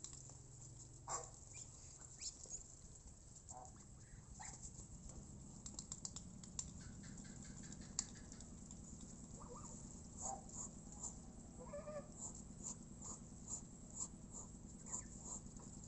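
Faint, scattered soft clicks and patter from a flock of Muscovy ducks and white domestic geese foraging on bare ground, with a few short, quiet calls now and then.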